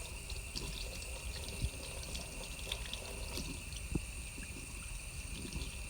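Tap water running into a sink while a makeup sponge is rinsed under it, with small scattered wet clicks over the steady flow.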